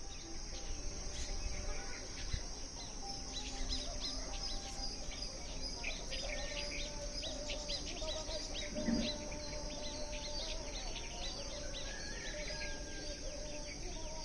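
Outdoor rural ambience: many birds chirping, rapid short downward chirps over and over, over a steady high drone, with faint wavering lower tones from about halfway.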